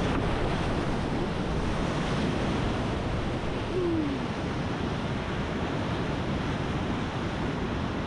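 Whitewater rapid rushing steadily, with wind buffeting the microphone. A brief falling tone sounds about halfway through.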